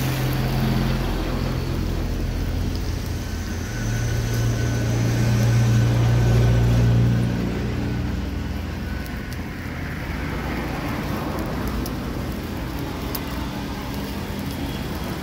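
Road traffic noise: a steady low vehicle engine rumble that swells louder for a few seconds in the middle, then eases off.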